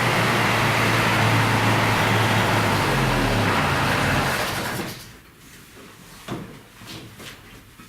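A car engine running steadily, then cut off about five seconds in; a few light knocks follow.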